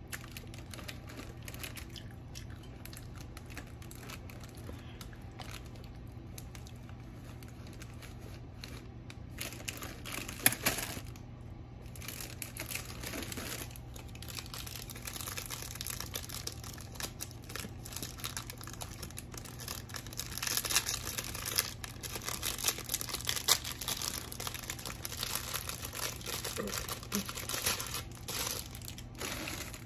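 Thin clear plastic crinkling and rustling as it is handled and pulled apart. It comes in bouts through the last two-thirds, with a sharp crackle about ten seconds in.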